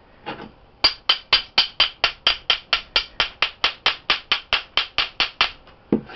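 A metal bath bomb mold half being tapped in a fast, even rhythm, about four or five sharp clinks a second for several seconds, followed by a heavier knock and rustle near the end.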